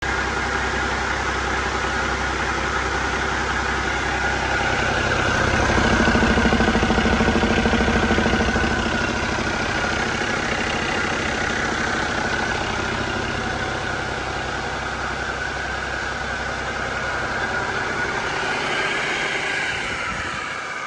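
Cummins ISX15 15-litre inline-six diesel engine running at a steady idle, a little louder for a few seconds about five seconds in.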